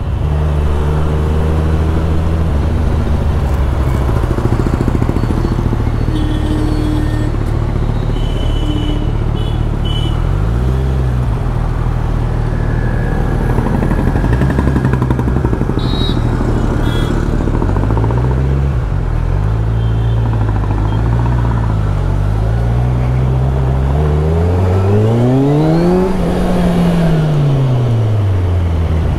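Kawasaki Z1000SX (Ninja 1000) inline-four engine running under the rider in city traffic, its pitch dipping and picking up again as the bike slows and pulls away. Near the end it revs up steeply through a gear, then winds back down.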